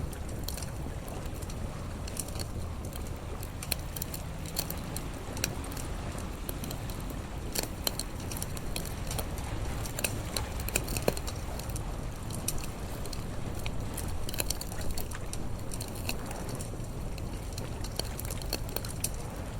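Campfire crackling, with irregular sharp pops over a steady low rumble.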